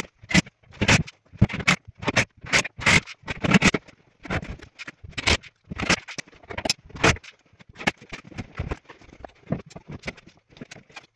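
Rapid, irregular knocks, scrapes and clatter of plywood panels, clamps and tools being handled, sped up with the footage.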